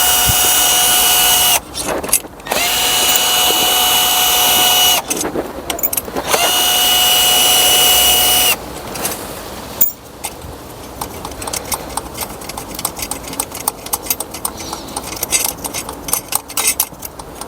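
A power-tool gun, most likely a cordless impact gun, spins out loosened intake-manifold bolts in three whirring bursts of about two seconds each. After about ten seconds come light metallic clicks and clinks as the bolts and plates are handled.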